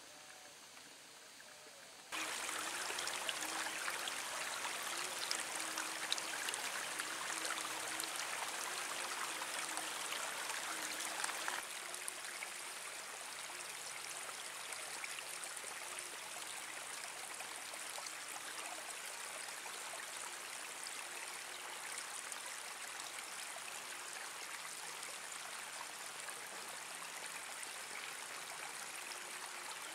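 Babbling stream water, running and splashing steadily. It cuts in abruptly about two seconds in after a quieter stretch, is loudest for the next ten seconds or so, then settles a little lower.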